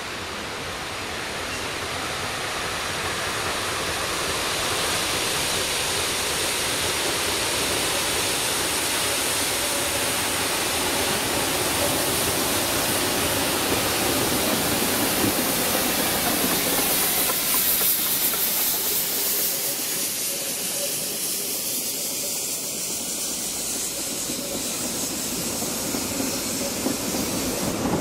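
Narrow-gauge Garratt steam locomotive hauling its coaches past: steam exhaust hissing over the running of wheels on the rails, growing louder over the first several seconds.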